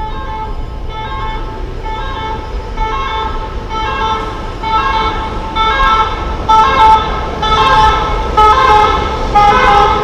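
Emergency vehicle siren on the street below, sounding in short repeated notes about twice a second and growing louder as it approaches, over a low rumble of city traffic.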